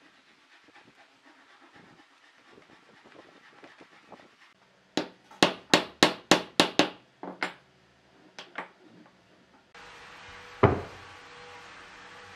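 A hammer striking a wooden block on top of a turned wooden column, about eight quick blows and then two lighter ones, driving the column down into the hole in its cross-shaped base. After a cut, one loud thud as a stack of boards is set down on the workbench, over a steady hiss.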